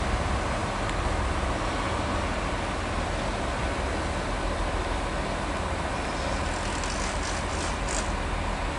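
HST (InterCity 125) Class 43 diesel power car moving slowly round a curve, its engine and the wheels on the rails making a steady rumble. A few faint high clicks come near the end.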